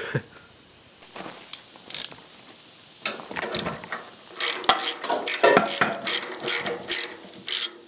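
Socket ratchet wrench clicking as it loosens a 7/16 mounting bolt on an old Briggs & Stratton updraft carburetor. A few single clicks come first, then from about three seconds in a steady run of quick ratchet strokes, two to three a second.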